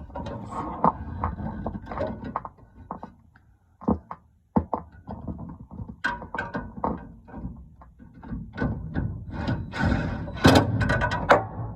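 Hand work on a gas furnace while a new hot-surface igniter is fitted: irregular clicks, knocks and rattles of parts and tools being handled. There is a brief lull about four seconds in, and the busiest, loudest clatter comes near the end.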